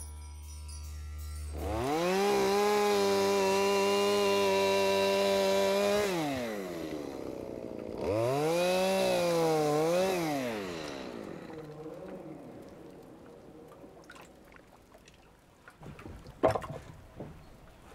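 Two-stroke chainsaw revved up to full speed and held steady for about four seconds, dropping back, then revved again for about two seconds with a wavering pitch before winding down and fading. A few sharp knocks near the end.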